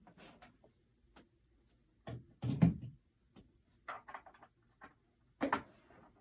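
Handling knocks and clicks: a loud thump about two and a half seconds in, a quick run of clicks around four seconds, and another knock near the end, as the animated Santa figure is handled and set going.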